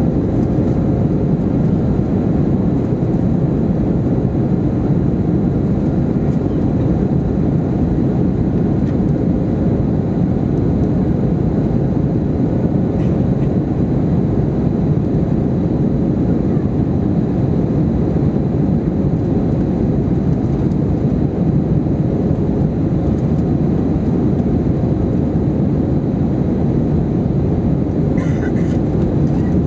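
Airbus A321-231 cabin noise: its two IAE V2500 turbofans and the airflow make a steady, loud, low engine-and-air noise heard from inside the cabin.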